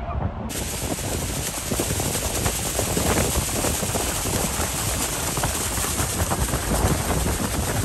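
Loud, steady rush of Niagara Falls' falling water and spray heard from a tour boat close beneath it, with wind buffeting the microphone; the hiss widens to full strength about half a second in.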